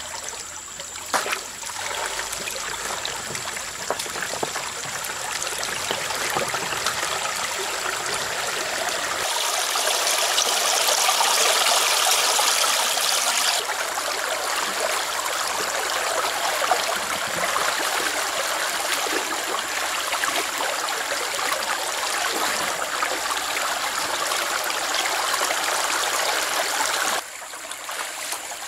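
Stream water running over rocks in a steady rush. It turns louder and hissier for a few seconds about a third of the way in, then drops suddenly near the end.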